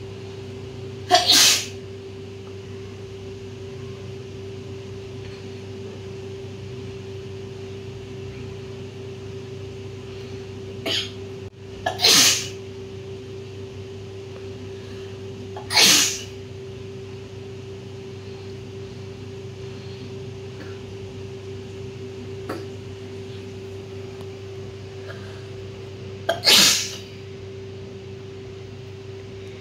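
A woman sneezing four times, several seconds apart, the sneezes set off by cotton pushed into her nostrils. A steady low hum runs underneath.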